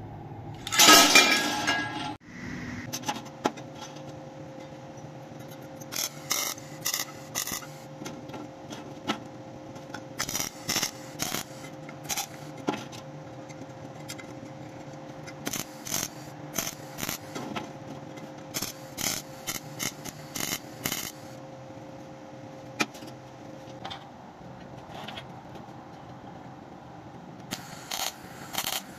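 MIG welding: short crackling bursts of the welding arc in quick clusters, typical of tack welds, over a steady hum. There is a loud rush of noise about a second in.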